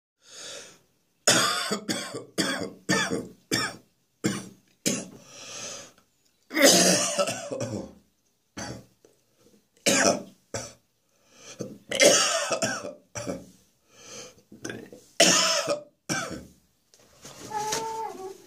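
A person coughing repeatedly from a throat infection: a quick run of about six coughs, then single and grouped harsh coughs every second or two. It ends in a longer, pitched throat sound.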